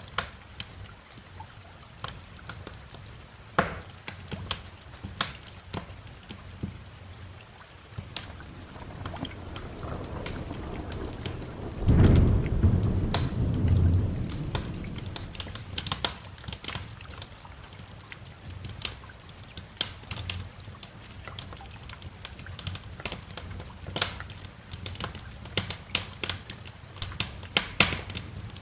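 Steady rain with a wood fire crackling, sharp pops scattered throughout. A roll of thunder builds and breaks about twelve seconds in, the loudest sound in the stretch, then rumbles away.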